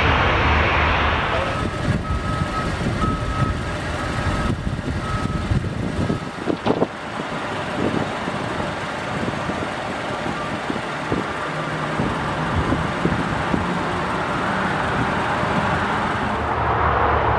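Steady rumble of airport and road traffic noise, louder in the first second and a half and again near the end, with a faint on-and-off high beeping a few seconds in.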